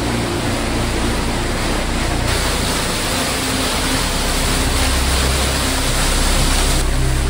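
Waterfall water rushing down: a steady noisy rush that grows brighter from about two seconds in until shortly before the end.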